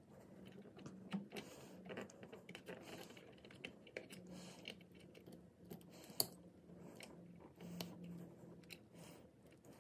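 Needle-nose pliers and fingers working thin thermostat wires to straighten them: faint, irregular small clicks and taps of the metal jaws on the wire, the sharpest one about six seconds in.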